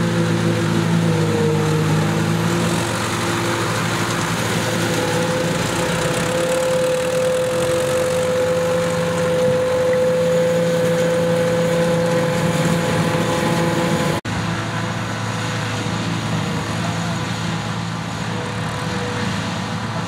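Tractor engines and a trailed JF1050 forage harvester running steadily, with a steady whine over the engine note. The sound breaks off for an instant about two-thirds of the way through and goes on a little quieter.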